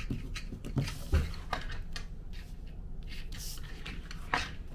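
Plastic-covered information sheets handled and turned over on a wooden desk: crinkling rustles and a few sharp taps, the loudest about a second in and near the end, over a steady low hum.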